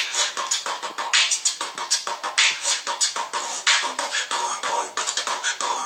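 Beatboxing: a person imitating a car sound-system beat with the mouth, a fast run of clicks and kicks with a louder hissing snare about every second and a quarter.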